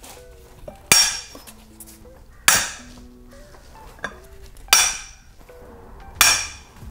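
Four sharp metallic clanks, each ringing briefly and about one and a half seconds apart: steel tools and bolts knocking on a Volvo 2.5T five-cylinder short block while its big lower-section bolts are worked loose. Faint background music with held notes runs underneath.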